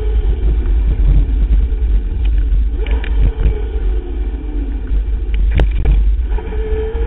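Wind rumble and rolling noise of an electric mountain bike riding fast on a dirt trail, heard through a bike-mounted action camera's microphone, with rattles and a sharp knock about five and a half seconds in.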